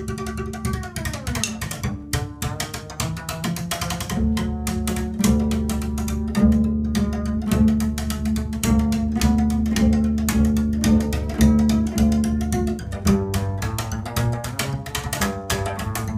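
Drumsticks beating a fast rhythm directly on the strings of an upright double bass while the bassist stops the notes, so each stroke sounds as a pitched, clicking bass note. About a second in, one note slides down in pitch.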